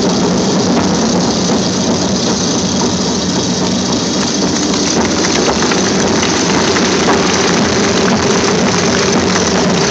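Steady drone of small propeller-aeroplane engines, an even hum with hiss over it.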